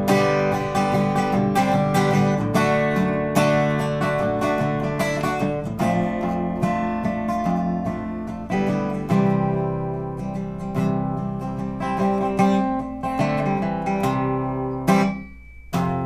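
Solo acoustic guitar strummed in an instrumental break of a song, with no singing. Just before the end the strumming stops for a moment, leaving a single note ringing, then starts again.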